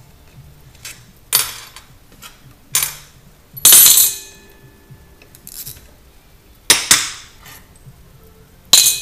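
Metal clinking on a sheet-metal workbench as the screws holding a hermetic compressor's electric motor are taken out with a small socket ratchet and set down. About eight sharp clinks come at uneven intervals. The loudest, about four seconds in and again near the end, ring briefly like a steel screw or tool dropped on metal.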